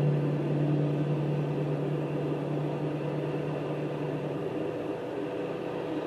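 Engine hum with a steady low pitch, fading slowly as it goes.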